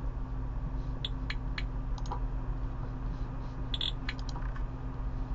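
Scattered light clicks from a laptop's touchpad and keys as web pages are navigated, over a steady low hum.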